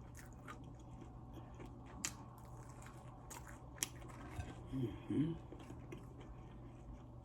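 Close-up chewing of crispy fried chicken, with scattered crunchy clicks as the coating is bitten and chewed. A short low voice sound comes about five seconds in.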